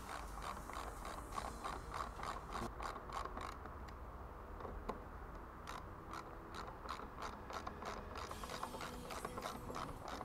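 Small hand ratchet clicking rapidly, about four or five clicks a second in several runs with a short pause in the middle, as the bolts of a motorcycle windscreen bracket are turned.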